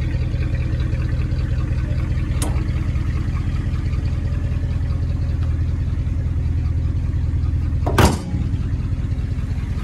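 1958 Ford Thunderbird's 352 V8 idling steadily, with a faint click a couple of seconds in and a loud thump about eight seconds in as the rear deck lid over the folded convertible top is pushed shut.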